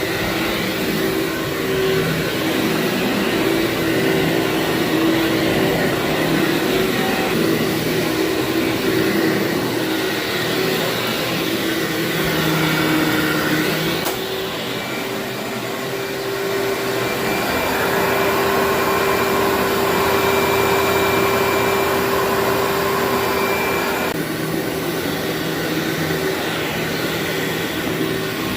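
Vacuum cleaner running steadily over carpet. Its motor hum and suction hiss change tone a few times as it works the dirty carpet.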